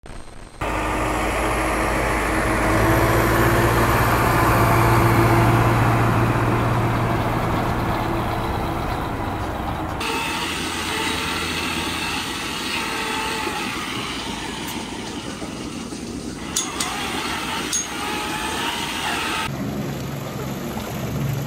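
Steady machine hum and hiss of dairy-barn equipment, cut together from several shots, so the sound changes abruptly about 10 s and again about 19.5 s in. The middle part is milking-parlour machinery running, with a couple of sharp clicks.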